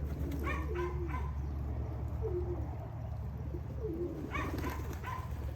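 Racing pigeons cooing at their loft: several short, low coos a second or so apart, over a steady low hum.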